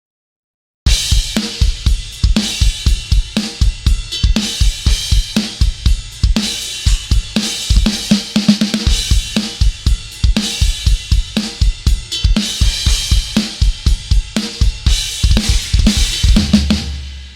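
Sampled metal drum kit from the Drums of Destruction EZX library playing a groove: fast, driving kick drum hits under snare, hi-hat and cymbals. It starts about a second in.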